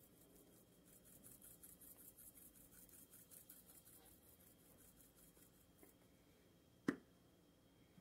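Faint, quick, even rattling of Italian seasoning shaken from a plastic shaker bottle, stopping about six seconds in, followed by a single sharp knock near the end.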